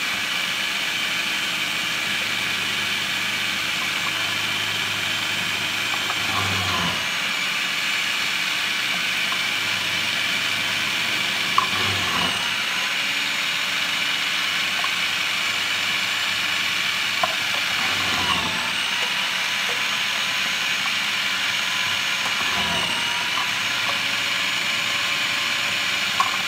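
Food processor motor running on low with its shredding disc, grinding cauliflower florets into cauliflower rice. It is a steady whirring hum, with a few brief knocks every five or six seconds as more florets are pushed down the feed chute.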